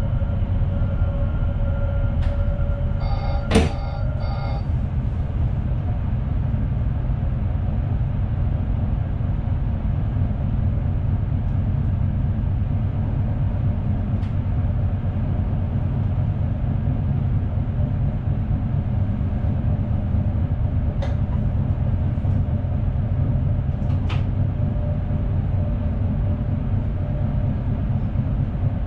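Steady low running rumble of an NS Sprinter Nieuwe Generatie (SNG) electric multiple unit, heard from its driver's cab. A faint whine fades out in the first few seconds. A short beep and a sharp click come about three and a half seconds in, and a few faint ticks follow later.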